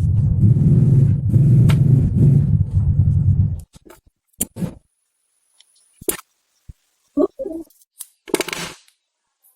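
A small motor running loudly with a steady low rumble, cutting off suddenly about three and a half seconds in; after that come scattered short clicks and knocks.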